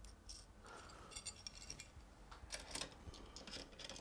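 Faint clicks and light metallic clinks of small hardware being handled and fitted: T-nuts and a filament holder going onto a 3D printer's frame. A quick rattle about a second in, then a few sharper clicks midway through.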